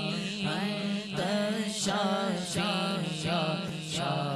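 A male voice chanting a slow, melodic Islamic dhikr of divine names, each syllable drawn out and bending in pitch, over a steady low drone.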